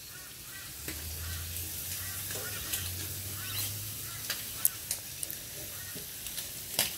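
Bacon sizzling on a barbecue, a steady frying hiss with a few sharp clicks. A few faint short pitched calls sound in the background.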